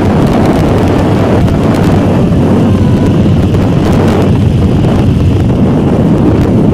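Motorcycle engine running steadily while cruising at about 60 km/h, mixed with wind buffeting the microphone; the level stays even throughout.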